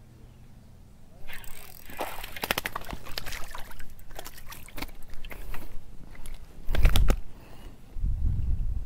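A canoe knocking and scraping against a plastic jet-ski float as it is pushed along by hand: rustling and clattering from about a second in, a heavy hollow thump near seven seconds, and low rumbling knocks near the end.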